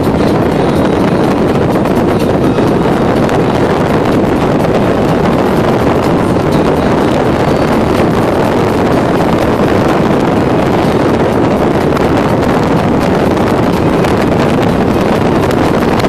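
Steady, loud rush of wind and road noise from a moving vehicle, with wind buffeting the microphone over the hum of the tyres and engine.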